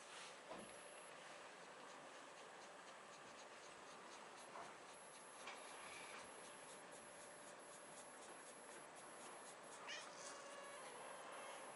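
Faint cat meows: a short call about five and a half seconds in and another near the end, over soft rubbing of a hand stroking the cat's fur.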